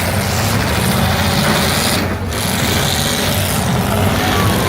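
Several demolition derby cars' engines running and revving at once under a loud, steady din, dipping briefly a little past halfway.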